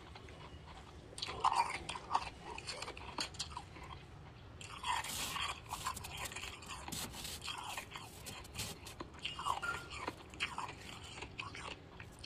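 Freezer frost crunching in three bouts of quick, crackly crunches: about a second in, around five seconds in, and near ten seconds.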